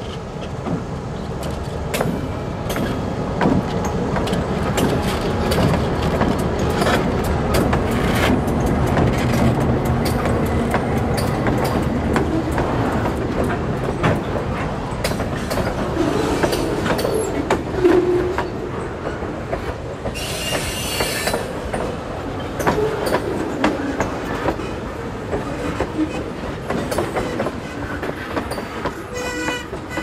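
Freight train passing close by: the lead diesel locomotives' engines rumble past, then a string of freight cars rolls by with wheels clacking over rail joints and a brief high-pitched wheel squeal about two-thirds of the way through.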